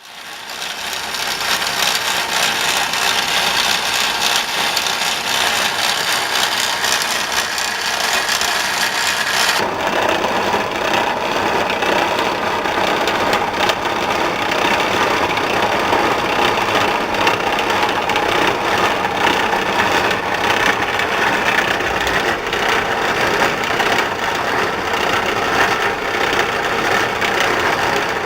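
Machine running steadily with a rattle from a bad pulley. About ten seconds in the sound shifts: the high hiss fades and a lower, fuller rattle comes forward.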